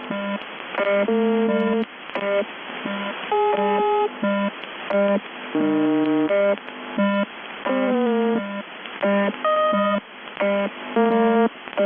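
Strange electronic tones received on UVB-76's 4625 kHz shortwave frequency: a choppy, melody-like string of short synthesizer-like beeps, a couple of notes a second, with a low note that keeps coming back and a quick falling run of notes a little past the middle. Radio static hisses between the notes, and the sound has the narrow, boxy quality of a shortwave receiver.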